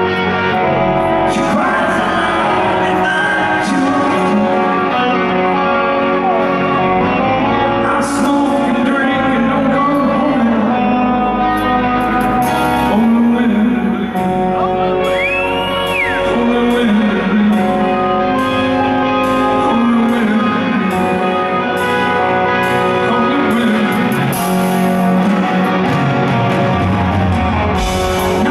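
Live rock band playing a slow ballad: a male lead singer over electric guitars and bass, heard in a large concert hall.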